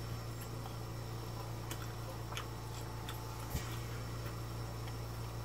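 Quiet close-up chewing of grilled steak, faint mouth clicks scattered through, over a steady low hum, with a small knock about three and a half seconds in.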